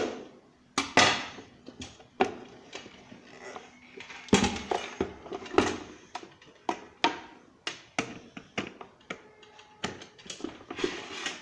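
Irregular clicks and knocks, one or two a second, of mixer grinder parts being handled and fitted back together.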